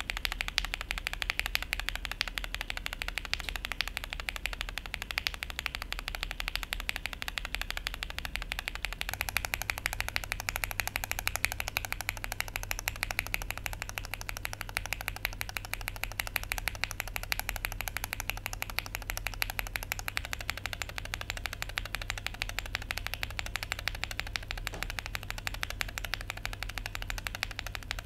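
Fast, continuous typing on a mechanical keyboard fitted with linear switches lubed with Krytox 205g0: Gateron CAP Milky Yellow v2, then SP-Star Meteor White from about nine seconds in, then SP-Star Polaris Gray for the last part. A dense, even patter of keystrokes whose tone shifts slightly when the switches change.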